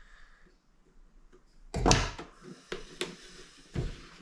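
A cardboard toy box being handled on a tabletop while its sealing tape is picked at: a loud thump and rustle about two seconds in, then a few sharp taps and a heavier knock near the end.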